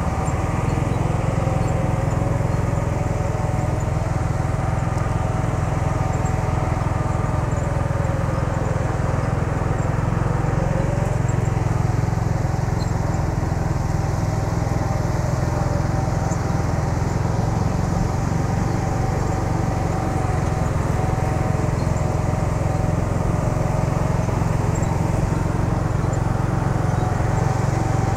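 Steady engine drone from a truck hauling an excavator on a dirt road, mixed with the engine of a motorbike following close behind it.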